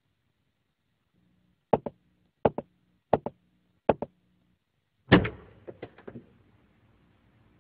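A series of knocks: four quick double knocks about 0.7 s apart, then a louder bang a little after 5 seconds in, followed by a few lighter clicks.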